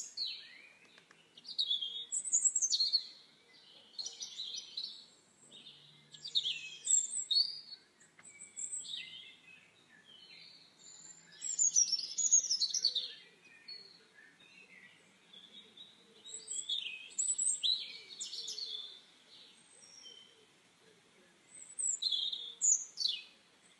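Small birds chirping and calling: short runs of quick, high, gliding chirps every few seconds.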